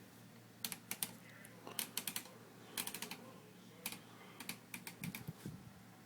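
1954 Royal Quiet De Luxe manual typewriter being typed on: keys and typebars strike in irregular clusters of sharp clicks, with a few duller knocks near the end.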